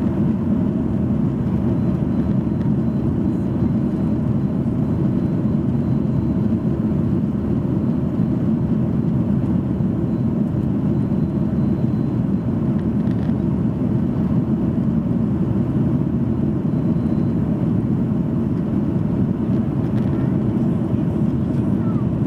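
Steady engine and airflow noise inside the cabin of a Boeing 737-800 with CFM56 turbofans, a constant low rumble. A faint high steady whine is present and fades out about halfway through.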